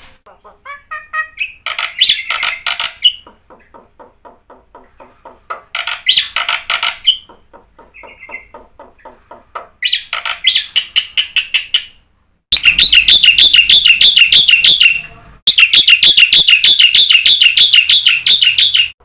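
Jalak putih starling singing: bursts of varied chattering, whistled phrases, then from about two-thirds in a loud, fast repeated phrase of about six notes a second, with one short break.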